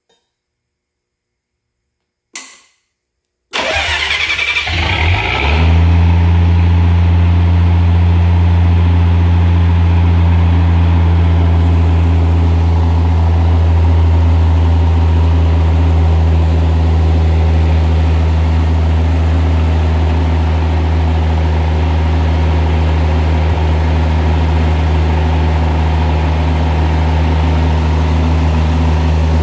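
Arrow A54 six-cylinder natural gas engine being started: a short click about two seconds in, then the starter cranks for about two seconds until the engine catches and settles into a steady, loud idle.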